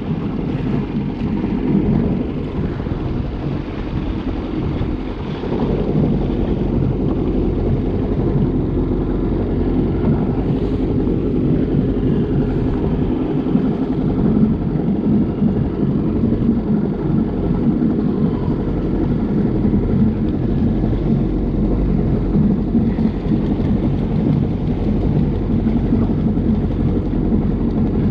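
Yamaha jet ski engine running steadily at low speed, a steady low drone that gets a little louder about six seconds in, with some wind on the microphone.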